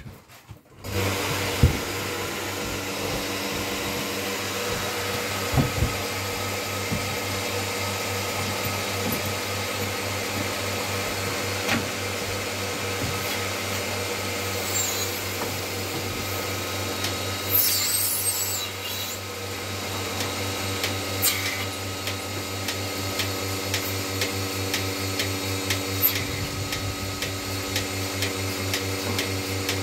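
Portable bucket milking machine switched on about a second in, its vacuum pump then running steadily with a regular ticking from the pulsator. A brief louder hiss of air comes a little past halfway.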